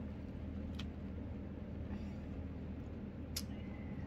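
Steady low hum with two brief clicks, one about a second in and a sharper one past three seconds.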